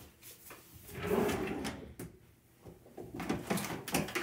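Bathroom vanity drawer slid open and its contents rummaged through: rustling and scattered knocks, with a sharper knock at the very end.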